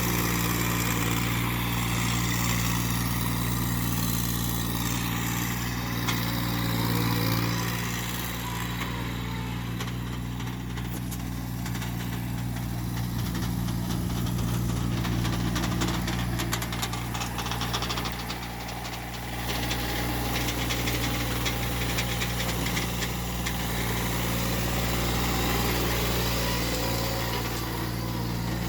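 Massey Ferguson GC1715 sub-compact tractor's three-cylinder diesel engine running steadily while the tractor works with its front loader, with light rattles partway through.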